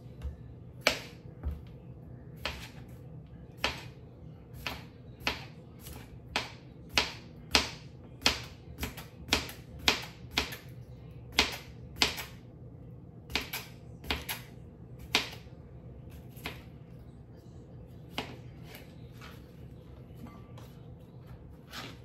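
Kitchen knife cutting through food and knocking on a cutting board, one sharp chop at a time, at roughly two a second at its busiest and sparser in the last several seconds.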